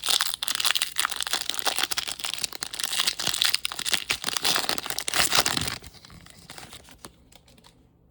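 Foil wrapper of a Topps Chrome trading card pack being torn open and crinkled, a dense crackling that stops about six seconds in, followed by a few fainter rustles.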